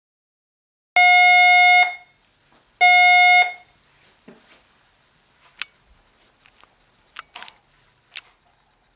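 Electronic fire alarm sounder giving two loud, steady buzzing tones, the first just under a second long and the second a little shorter, as it is set off during a routine inspection test. Light clicks and knocks follow.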